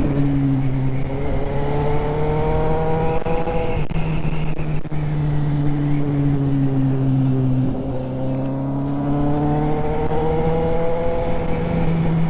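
Motorcycle engine running under way, with the rush of wind over the helmet-camera microphone. The engine note climbs gently twice as the rider opens the throttle through the bends.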